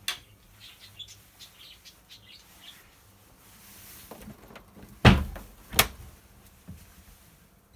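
Cupboard and appliance doors being handled: a click at the start, then two sharp knocks about five seconds in as a door is pulled open. Faint bird chirps can be heard behind.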